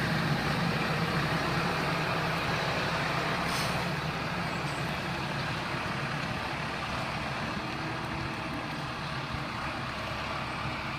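Farm tractor engine running steadily, easing off slightly toward the end.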